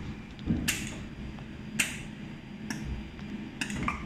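200 W jewelry laser welding machine running with a steady hum, punctuated by short, sharp snaps about once a second as it fires pulses.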